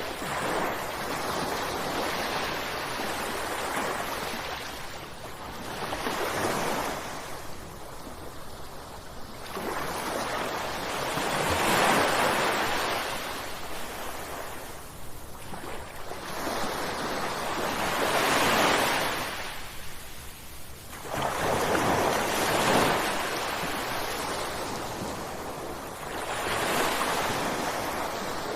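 Ocean waves crashing one after another, a swell of surf about every five to six seconds, each building up and washing out.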